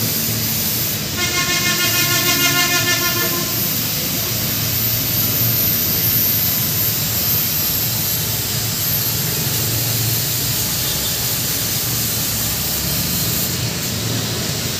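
Small 3-watt single-outlet aquarium air pump running with a steady hum, its air stone bubbling in the tank. About a second in, a pitched tone sounds over it for around two seconds.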